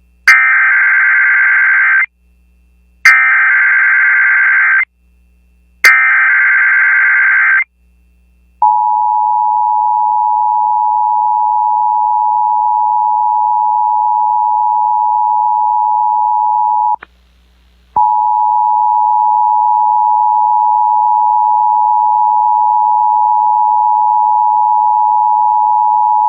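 Emergency Alert System tones received off an FM broadcast: three bursts of SAME header data, each about two seconds long, followed by the steady two-tone EAS attention signal that drops out for about a second partway through and then resumes. These tones open the alert for a Required Monthly Test.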